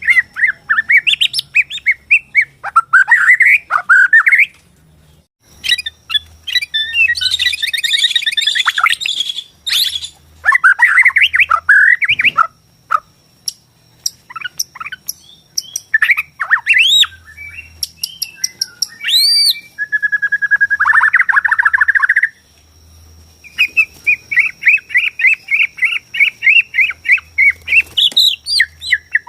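Bornean white-rumped shama (murai batu) singing a loud, varied song: whistled phrases that sweep up and down, a harsh scratchy stretch, short pauses, and a fast run of repeated notes near the end. A thin steady high tone runs faintly behind the song from about five seconds in.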